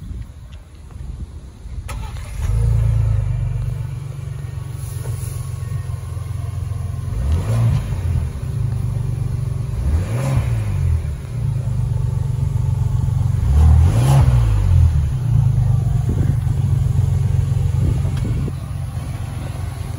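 A 2023 Ford Expedition's 3.5-litre high-output twin-turbo EcoBoost V6 cranks and starts from cold about two seconds in, flares, then settles to idle. It is revved three times, each rev rising and falling in pitch, the third the loudest. It is heard from behind the vehicle at the exhaust.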